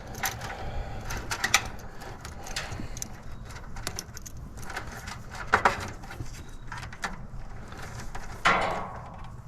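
Hand-work handling noises: scattered small clicks, taps and rustles of wiring and a strap being handled, with two louder scrapes about five and a half and eight and a half seconds in.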